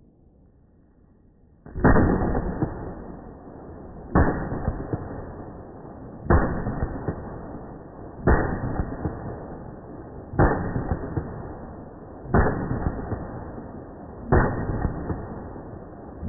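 AR-15 rifle shots, seven in a row about two seconds apart after a short quiet start. Each begins with a sudden bang and fades into a long rumble.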